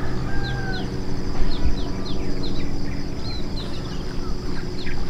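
Birds chirping: a quick run of short, falling chirps, two or three a second, with a couple of longer whistled notes about half a second in, over a steady low hum.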